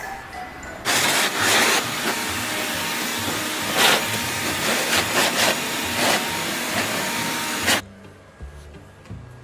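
Handheld leaf blower running, a steady rush of air that starts about a second in, swells louder a few times and cuts off suddenly near the end.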